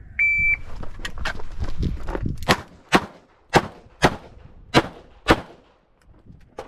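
Shot timer's start beep, then six revolver shots fired as three quick pairs, each pair about half a second apart.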